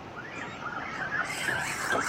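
Electric motor of a radio-controlled rock bouncer truck whining, its pitch wavering up and down with the throttle and growing louder toward the end.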